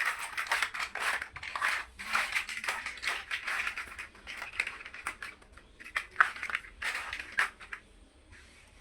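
Small plastic building bricks clicking, scraping and rattling as they are handled and pressed together. A dense run of clicks that thins out and goes quiet near the end.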